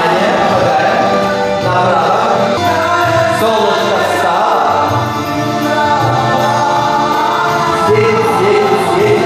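Music with choral singing, several voices holding and gliding through sustained notes.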